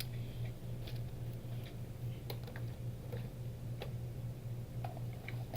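Light, scattered clicks and taps of small parts and tools being handled on a workbench, over a steady low electrical hum.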